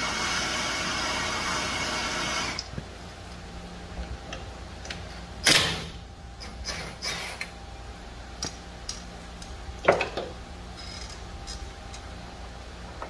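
Handheld gas torch burning with a steady hiss that shuts off abruptly about two and a half seconds in. Scattered metallic clinks and knocks of tools follow, the loudest about five and a half and ten seconds in.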